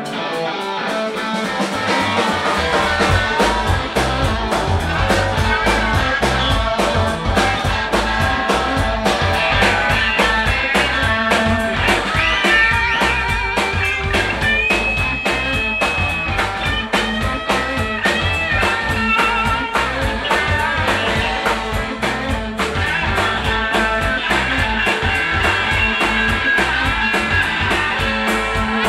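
Electric blues guitar playing a lead line with bent and held notes. A bass line and a steady beat come in about two seconds in.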